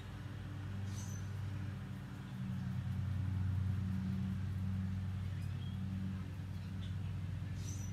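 A steady low mechanical hum that swells slightly a few seconds in, with a few short high bird chirps about a second in and near the end.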